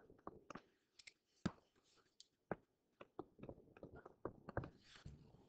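Near silence with a scatter of faint short clicks, the clearest about one and a half seconds in.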